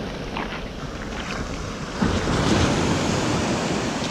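Sea surf washing on the beach, with a wave surging in louder about two seconds in, and wind buffeting the microphone.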